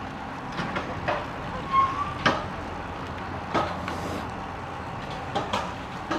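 Road bicycle riding along: steady wind and tyre noise, with a scattering of short clicks and knocks from the bike and one brief squeak.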